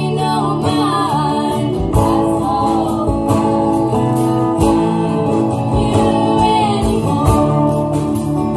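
Live band performance of a blues-tinged indie song: strummed guitars with keyboard, a drum beat and a singing voice.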